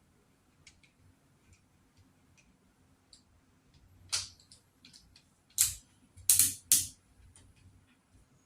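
Light clicks and handling noise, then a few short, sharp clacking rattles between about four and seven seconds in, as the chainsaw attachment's shaft is fitted and tightened in a drill chuck.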